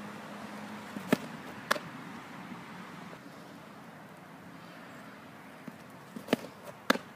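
Sharp leather smacks of a softball during pitching practice: two pairs of pops about half a second apart, one pair a second in and one near the end as a windmill pitch pops into the catcher's mitt, over steady outdoor background noise.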